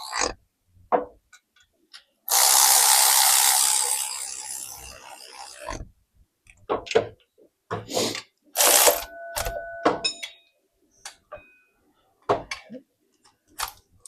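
Ratchet wrench and tool work tightening the 12 mm bolts on a water pump spacer: a long noisy burst about two seconds in that fades over some three seconds, then a series of short clicks and clanks.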